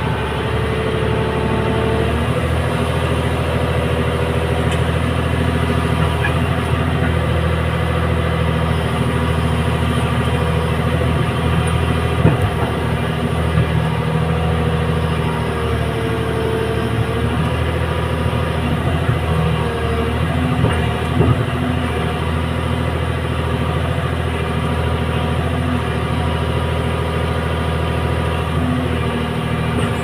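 Hyundai Robex 300LC excavator's diesel engine running steadily under load, with a hydraulic whine rising and fading as the boom lifts and swings the loaded bucket. A few short knocks come about halfway and again about two-thirds of the way through.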